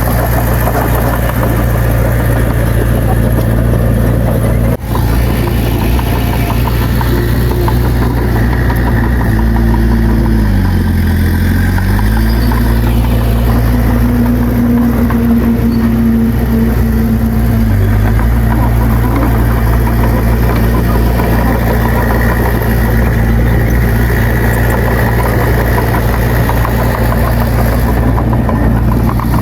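Heavy earthmoving machine's diesel engine running steadily. About ten seconds in, its pitch sags for a second or two and then recovers, as when the engine lugs under load.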